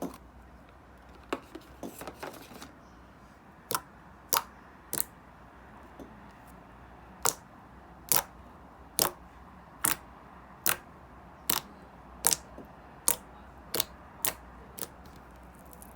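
Avocado slime being pressed and worked by hand, giving a series of sharp pops and clicks. A few come scattered at first, then they fall into a fairly even rhythm of about one a second.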